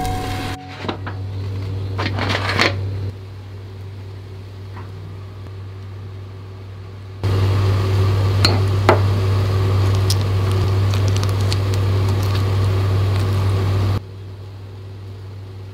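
A low, steady mechanical hum, such as a kitchen fan. It drops in level a few seconds in, comes back louder about halfway and cuts off near the end. A few light clicks of chopsticks against a ceramic plate sound over it.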